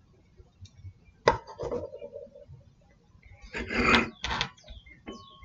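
A lighter clicked as a joint is lit, with light knocks and handling noise; a short breathy rush about four seconds in, and a faint steady tone begins near the end.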